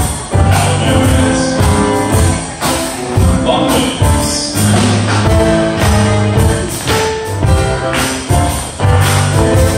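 Live contra dance music from a keyboard, fiddle and percussion trio, the percussion keeping a steady beat under a strong bass line.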